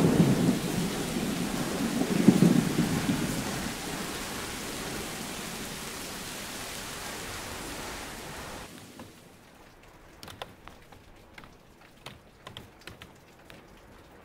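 Thunder rumbling over steady heavy rain, with a second rumble about two seconds in. The rain fades and, about nine seconds in, gives way to sparse, faint ticks and drips.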